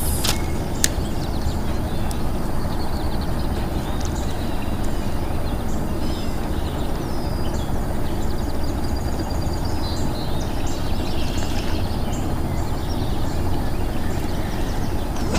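Steady low rumbling background noise with faint bird chirps above it and a single click about a second in.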